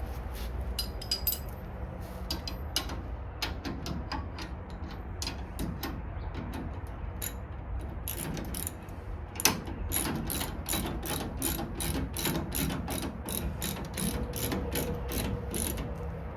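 Ratchet wrench clicking as a nut is tightened onto a bolt: scattered clicks at first, then a steady run of about three clicks a second through the second half, with one sharper knock in the middle.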